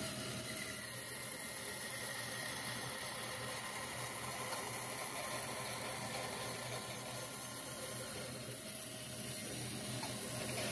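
Band saw running steadily, cutting a plastic vacuum attachment into a new dust chute: an even whir with hiss and a faint hum that doesn't change.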